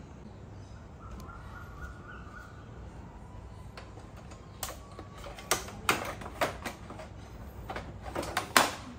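Motorcycle side body panel being worked loose and lifted out from the top: a run of sharp plastic clicks and snaps in the second half as it comes free, the last one the loudest.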